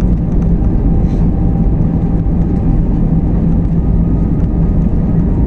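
Cabin noise of an Airbus A321 rolling along the runway after landing: a loud, steady rumble with a low, even hum underneath.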